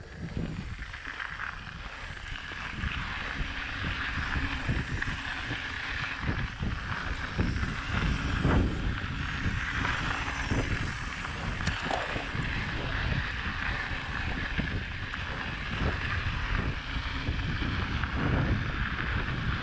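Mountain bike riding a dirt singletrack: wind buffeting the action-camera microphone over the rolling tyres, with a steady rumble and frequent small knocks and rattles from the bike over bumps.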